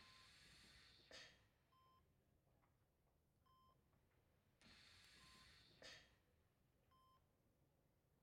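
Faint hospital patient-monitor beeping, short steady tones about every 1.7 seconds, five in all. Twice, a second or so long, a soft hiss swells and ends in a brief louder rush.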